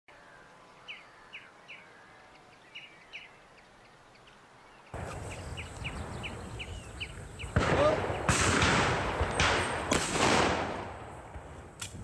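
Small birds chirping in short repeated calls. Then, in the second half, a quick series of shotgun shots, each trailing off in an echo.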